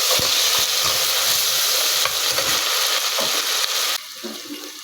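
Ginger-garlic paste sizzling loudly in hot oil with fried onions and fenugreek seeds, with a few knocks of stirring in the pan. The sizzle cuts off suddenly about four seconds in, leaving a fainter hiss.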